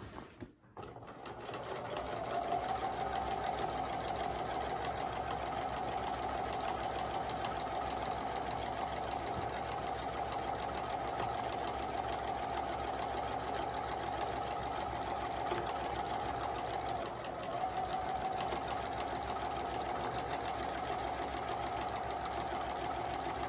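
Pfaff electric sewing machine running steadily as it sews a long basting stitch along a fabric edge. It starts up a second or two in and dips briefly about two-thirds of the way through before carrying on.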